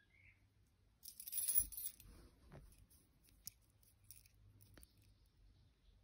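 Steel warded lock picks of a SouthOrd WP-10 set jingling on their ring as they are handled, loudest about a second in, followed by a few light metallic clicks.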